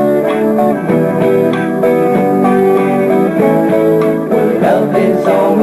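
Guitar-led pop music playing, with plucked and strummed guitar and no singing in this stretch.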